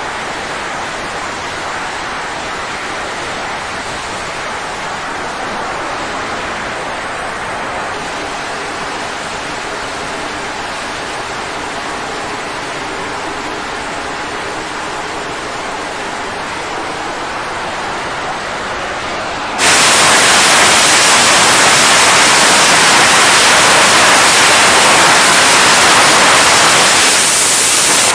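Jet engines of F/A-18 fighters on a carrier flight deck, a steady rushing noise. About twenty seconds in it jumps suddenly much louder and harsher, the engines at full power for a catapult launch.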